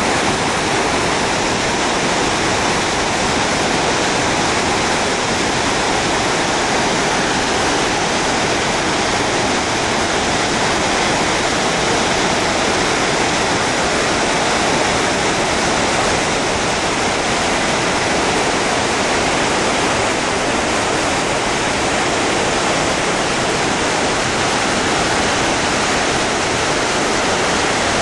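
Floodwater rushing and pouring, a steady, loud, unbroken rush of water.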